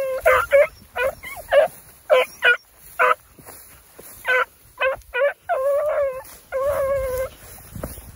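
Young beagles baying as they work a rabbit's scent through tall grass: a run of short chop barks mixed with a few longer drawn-out bawls. The voices stop about a second before the end.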